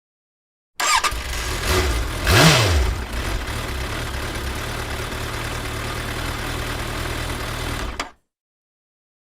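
A car engine starting about a second in, revving up and back down once, then idling steadily until it cuts off abruptly near the end.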